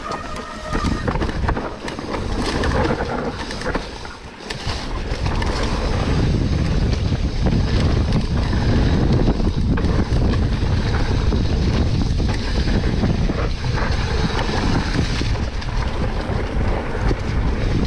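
Wind buffeting an action camera's microphone as a mountain bike rides down a trail, with the rumble and rattle of the bike over rough ground. It gets louder and steadier about five seconds in as speed builds.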